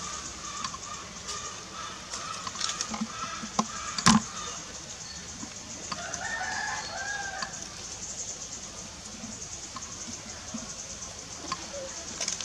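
A drawn-out animal call about six seconds in, lasting roughly a second and a half, over scattered clicks and rustles. One sharp knock about four seconds in is the loudest sound.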